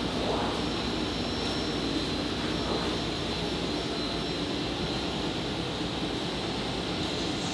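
Automatic offset plate processor running steadily as a printing plate passes through it: an even mechanical hum and hiss with a faint steady high whine.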